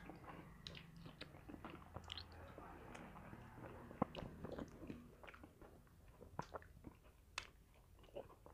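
Faint chewing and biting as two people eat soft ripe papaya slices by hand, with wet mouth sounds and scattered small clicks.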